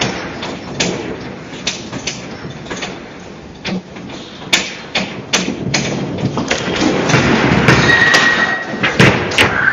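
Building shaking in the magnitude 7.8 earthquake: the front door and fittings rattle and knock again and again over a rumble that grows louder in the second half, with a short high squeal about eight seconds in.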